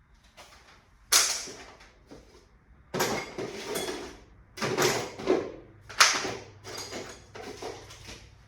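A series of sharp knocks and clatters of hard parts being handled and set down, the loudest about a second in and about six seconds in, with several smaller rattles between.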